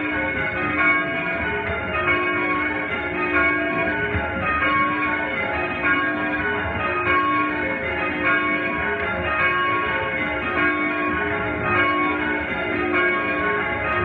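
A light ring of five church bells (5 cwt, tenor in C#, cast by Mears and Stainbank in 1909) being rung full-circle, heard from the ringing chamber below. The bells strike one after another in a steady, even stream.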